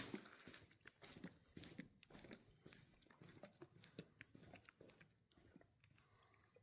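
Faint, irregular crunching and clicking that thins out toward the end.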